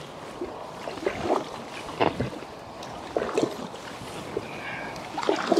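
Paddle strokes from a packraft: irregular short splashes and knocks of the paddle in the water and against the inflatable hull.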